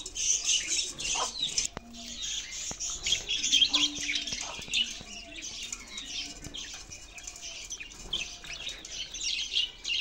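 Several budgerigars chirping and warbling together in a dense, continuous, overlapping chatter of quick high chirps.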